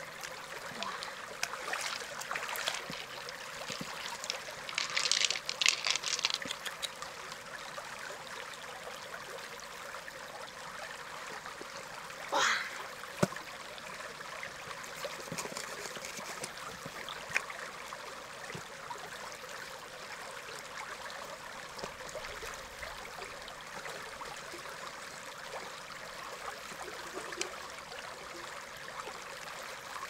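River water running and trickling steadily, with scattered small splashes and clicks. There is a short burst of splashing about five seconds in, and a brief high squeak about twelve seconds in.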